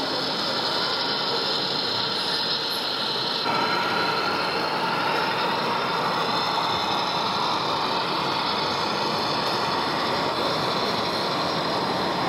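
Steady mechanical running noise of a radio-controlled model truck driving, set against the constant background noise of a busy exhibition hall; the sound changes a little about three and a half seconds in.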